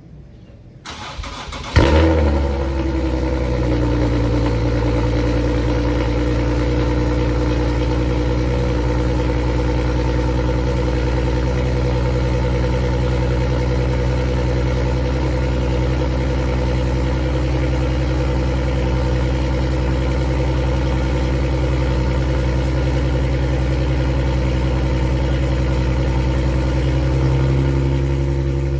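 A 2014 Infiniti Q50's 3.7-litre V6 cold-starting through long-tube headers and a 3-inch custom exhaust with the exhaust valves open: a brief crank about a second in, the engine catches with a sharp loud flare, then settles into a steady, loud idle. The idle note shifts slightly near the end.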